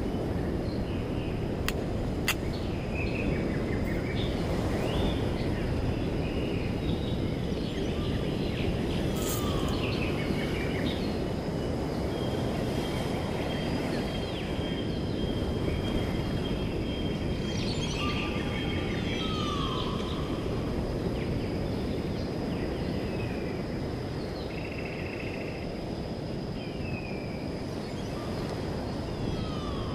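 Outdoor seaside ambience: a steady rush of wind and distant surf, with birds chirping on and off and a thin steady high whine. Two sharp knocks come close together about two seconds in.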